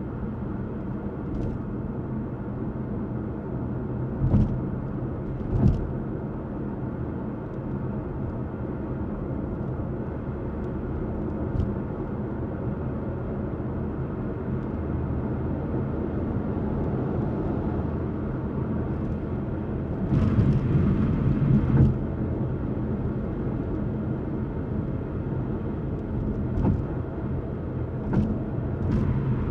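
Steady low rumble of a car's tyres and wind noise at highway speed, with a few short thumps and a louder stretch of about two seconds roughly two-thirds of the way through.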